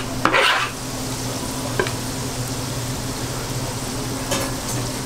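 Korean fish cakes deep-frying in a basket of hot oil: a steady sizzling hiss, with a low steady hum underneath and a short louder burst just after the start.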